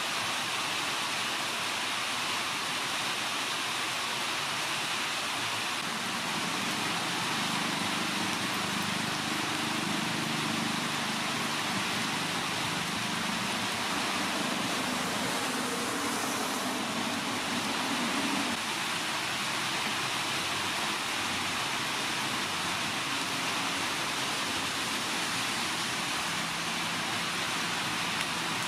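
Large aluminium pot of mung bean dessert at a rolling boil over a wood fire, giving a steady, even bubbling hiss.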